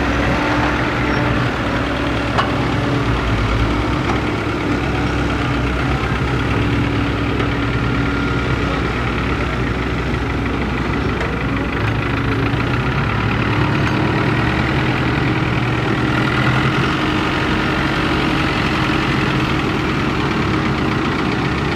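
Kobelco hydraulic excavator's diesel engine running steadily, its pitch dipping briefly and coming back up a little past the middle.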